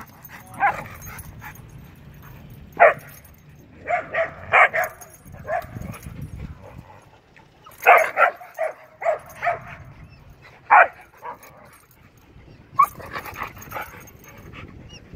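A Siberian husky and a Rottweiler at rough play, giving short barks and yips in scattered bursts, some in quick runs of three or four.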